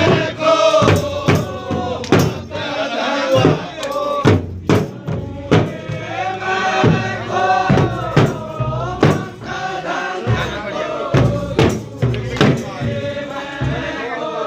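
A group of men singing a Kumaoni khadi holi song together in a chanting style, with a drum beating about twice a second.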